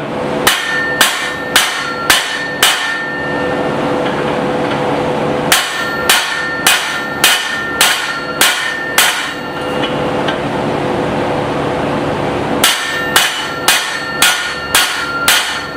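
Hand hammer striking the hot steel of a small hammer head on an anvil, about two blows a second in three runs of five, seven and six blows, each blow with a short metallic ring. A steady hum runs underneath.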